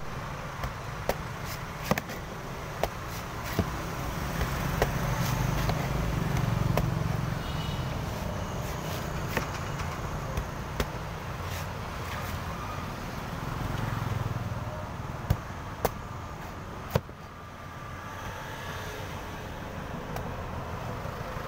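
Cleaver chopping into the husk of a young coconut in sharp, irregularly spaced strikes, over a continuous rumble of passing street traffic that swells twice.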